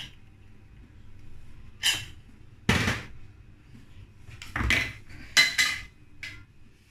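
Stainless-steel pressure cooker and its lid being handled: about five separate metal clanks and knocks, some with a brief ring.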